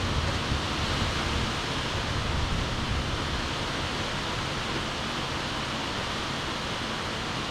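Steady rushing noise of stormy weather, with a low rumble that is strongest in the first second.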